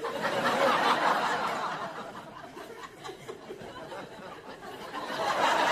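Studio audience laughing at a punchline. The laughter is loudest right at the start, dies down in the middle and swells again near the end.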